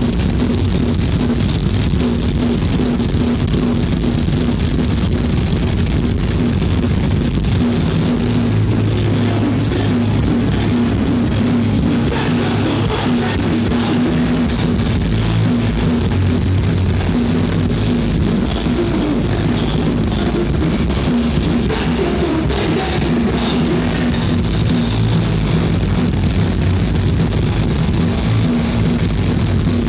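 Hardcore band playing live: loud distorted electric guitars and a pounding drum kit, one continuous full-band passage.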